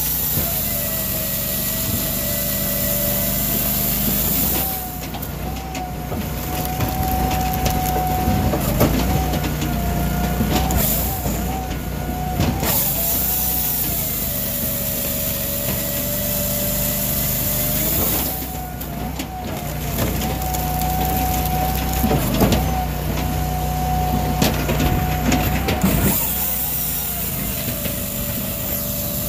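Brute Force 14-24 firewood processor working, its 26.5 HP Kohler EFI engine and hydraulics running steadily while the chain bar saw cuts logs and the splitter splits the rounds. The machine's whine drops in pitch for a few seconds three times.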